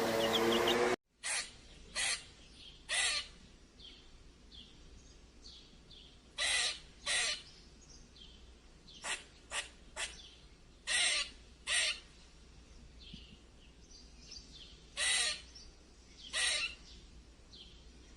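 A loud pitched animal sound cut off about a second in, then a bird giving a dozen or so short, harsh calls, singly and in pairs, at irregular intervals.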